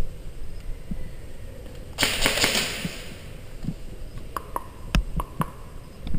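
A rush of hiss lasting about a second, then a scatter of about six sharp clicks over a second, typical of airsoft guns firing and BBs striking hard surfaces.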